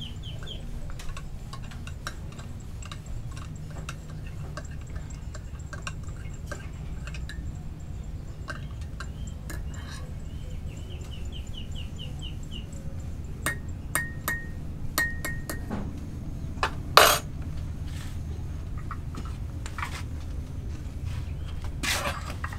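Metal teaspoon stirring coffee in a glass, clinking against the glass again and again, a few of the clinks ringing briefly. One louder clatter about two-thirds of the way through.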